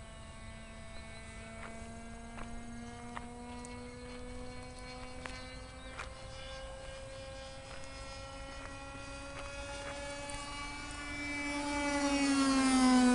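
A .46 glow-plug two-stroke engine on a control-line model airplane running steadily at high speed as the plane circles. Near the end it gets much louder and its pitch drops as the plane sweeps close past.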